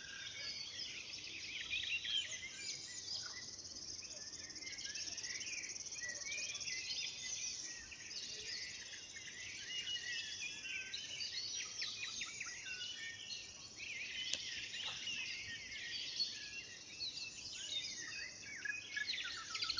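Several songbirds singing at once at night, a dense, overlapping chorus of quick trills, chirps and whistles that never stops, with a single sharp click about fourteen seconds in.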